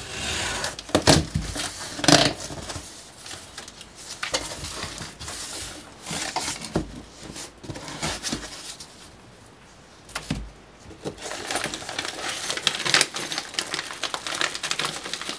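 A cardboard shipping box being unpacked by hand: packing tape slit, flaps and packing foam handled, and plastic bags of parts rustling, with scattered knocks and crinkles.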